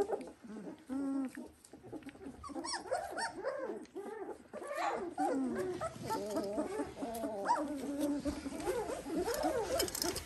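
A litter of young Dalmatian puppies whining and yipping, several at once: a steady run of short, overlapping squeals and whimpers that rise and fall in pitch and grow busier after the first couple of seconds.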